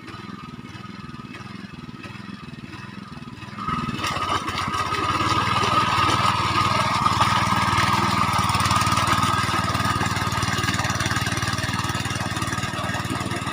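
Mini tractor engine running, growing suddenly louder about three and a half seconds in and then running steadily at the higher speed.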